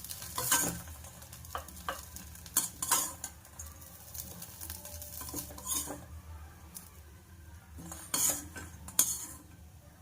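A spatula scraping and clinking against a pan as roasted soybean chunks are scooped out, in scattered strokes with a few sharper clinks.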